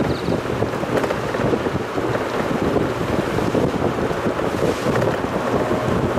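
Mazda Roadster driving downhill: steady wind buffeting the microphone over the car's road and engine noise, with playback sped up.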